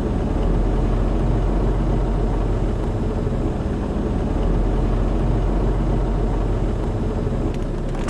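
Steady low rumble inside a truck's cab while it creeps forward in traffic: the diesel engine and tyres on the wet road.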